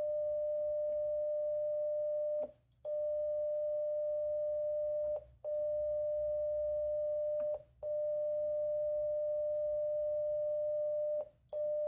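CW sidetone from an FX-4CR QRP transceiver keyed down with a straight key: a steady mid-pitched beep while the radio transmits a tuning carrier into a ZM-2 Z-match tuner in tune mode. The tone breaks off four times for a fraction of a second, with a light click at each break, as the key is let up.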